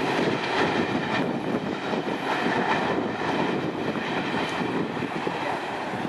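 Empty steel coal hopper cars of a freight train rolling away over the rails: steady wheel noise with many rattles and clanks, easing slightly toward the end.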